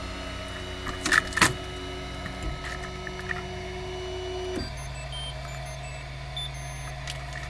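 MakerBot 3D printer's stepper motors and fans whining steadily as the print head travels, with two sharp clicks about a second in. A little past halfway the whine drops to a lower steady hum.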